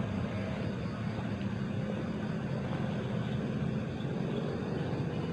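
Steady low mechanical hum, unchanging throughout.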